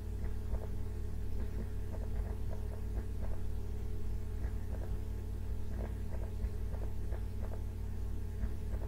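Steady low electrical hum, with faint, irregular light clicks and taps from drawing on a computer whiteboard.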